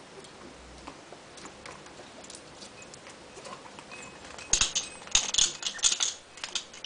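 African grey parrot making clicking and rattling noises: faint scattered ticks, then about two seconds of loud, scratchy rattling starting about four and a half seconds in.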